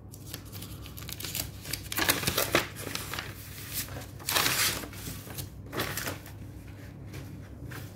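Paper rustling and crinkling as a kraft mailing envelope and the duplex board inside it are handled and turned over on a wooden table, with louder rustles about two seconds in and again about four and a half seconds in.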